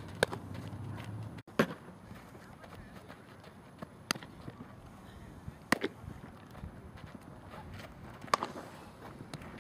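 Sharp pops of a softball smacking into a leather fielding glove, about five catches a second or two apart, over a faint outdoor background.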